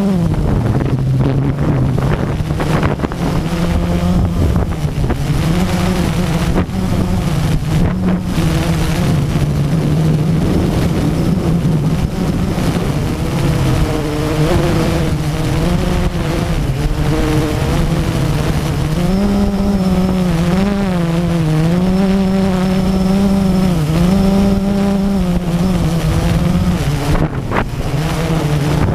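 Electric motors and propellers of a radio-controlled drone in flight, heard from its own onboard camera: a steady buzzing hum whose pitch wavers up and down as the throttle changes, most of all in the second half.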